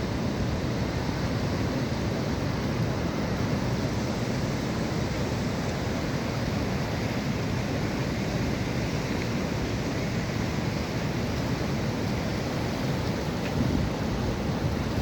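Flood-swollen mountain river rushing steadily, a dense, unbroken water noise strongest in the low and middle range.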